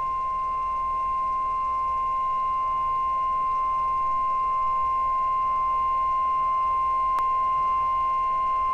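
Emergency Alert System attention tone: one steady electronic tone held unbroken, the signal that a severe thunderstorm warning message is about to be read. A brief click about seven seconds in.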